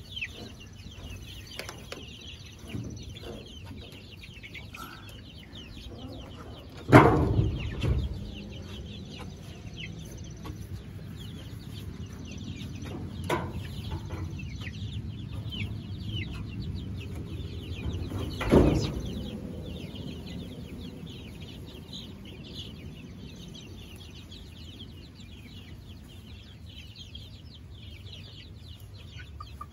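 A flock of young chickens peeping, with many short, high chirps going on all the while. Two loud bumps break in, about a quarter of the way through and again past the middle.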